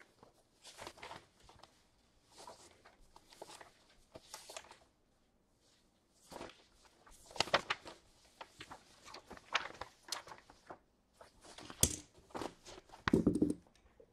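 Faint, irregular handling noises in a small room: scattered rustles, clicks and knocks, with one sharp click about twelve seconds in and a louder dull thump near the end.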